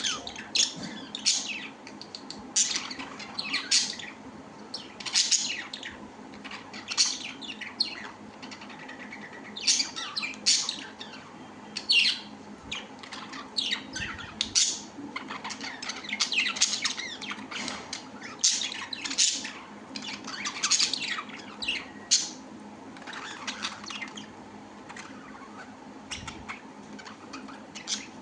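Birds chirping and squawking, many short sharp calls coming a few a second with brief pauses between bursts.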